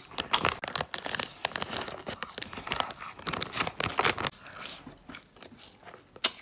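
Close-miked chewing and crunching of spicy latiao, a Chinese gluten-strip snack. Quick crisp clicks come thick and fast for about four seconds, then thin out.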